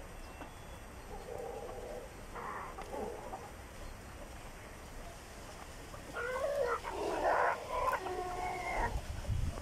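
Chickens calling: a few softer calls between about one and three seconds in, then a rooster crowing, one loud call of about three seconds starting about six seconds in and ending on held notes.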